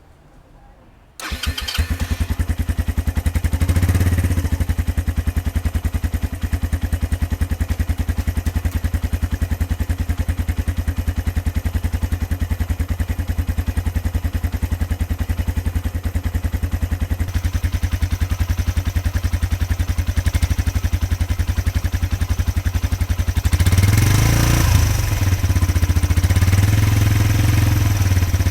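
Suzuki EN125-2A's 125cc single-cylinder four-stroke engine, on its stock muffler, starting about a second in with a brief crank and then idling steadily with a deep, low pulse. Near the end it is revved a few times, getting louder with the pitch rising and falling, then settles back to a steady run.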